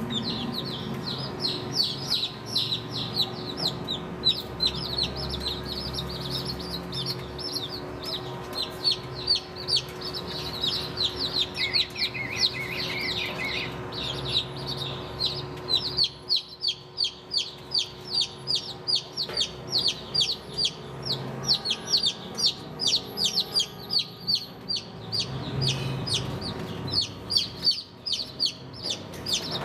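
A brood of baby chicks peeping nonstop: many overlapping short, high, falling peeps, several a second, over a faint steady hum.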